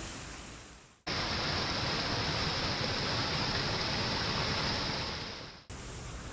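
Water pouring in a sheet over a brick ledge and splashing into foamy water below: a loud, steady rush that starts suddenly about a second in and fades out near the end. Before and after it, a softer steady hiss.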